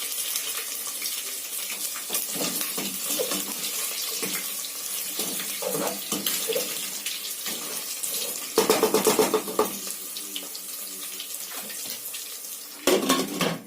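Pieces of meat frying in hot oil with fried onion, garlic and ginger, sizzling steadily, with two louder bursts of a second or so, about nine seconds in and near the end.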